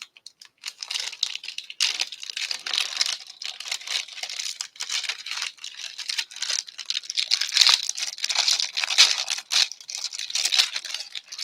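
Plastic packaging crinkling and rustling steadily as it is handled and unwrapped, a dense run of crackles.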